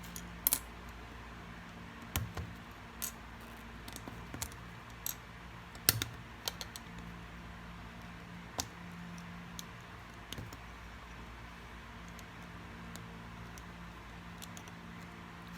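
Plastic Lego bricks clicking as they are handled and pressed together, a dozen or so irregular sharp clicks with pauses between them.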